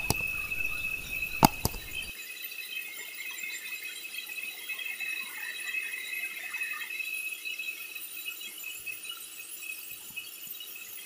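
Sawmill band saw running with a steady high whine. Two sharp knocks of wood on the steel table come in the first two seconds, over a low rumble that cuts off abruptly about two seconds in.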